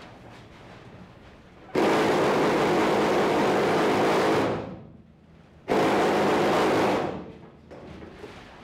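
Electric ratchet-strap winder's motor running in two bursts, about two and a half seconds and then about a second and a half, reeling in a strap; each burst eases off as the motor stops. The owner finds it struggles a little.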